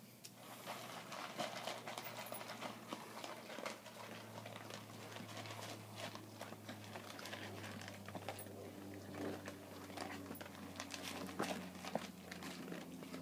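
Three dogs eating dry kibble from bowls: faint, fast, irregular crunching and clicking of food and teeth against the bowls.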